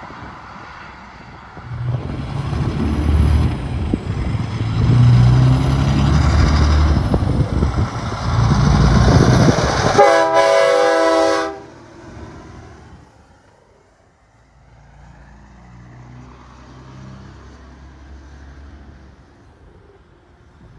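A tank-trailer semi truck drives past close by with its diesel engine loud. Then a semi's air horn gives one steady blast of about a second and a half, and the truck's engine fades as it pulls away.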